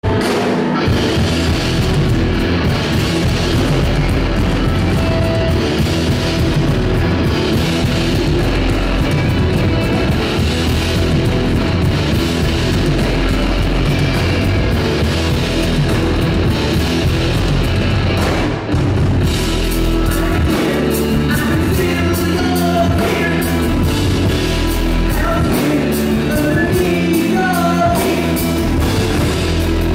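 Live rock band playing loudly: electric guitars, bass guitar and drum kit, heard through the PA. The music breaks off for a moment about two-thirds of the way through, then picks up with a tighter beat and a voice singing over it.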